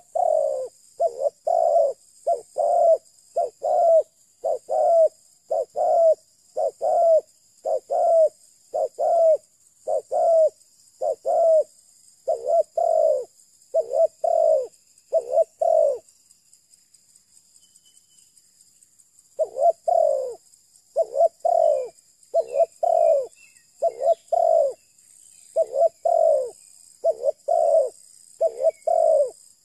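Spotted dove cooing: a long series of low coos, roughly three every two seconds. The coos break off for about three seconds past the middle, then start again.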